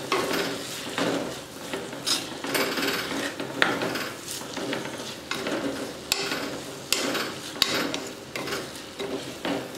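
Slotted wooden spatula stirring and scraping sliced onions around a clay pot, in irregular strokes about once a second, over a light sizzle of the onions sautéing in oil.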